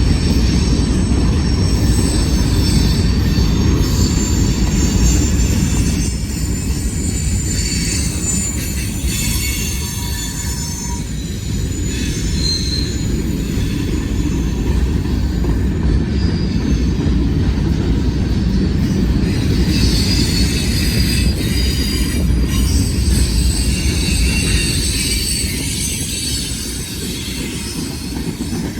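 Freight train cars rolling past in a continuous low rumble, with high-pitched steel wheel squeal coming and going as the wheels grind through a tight curve.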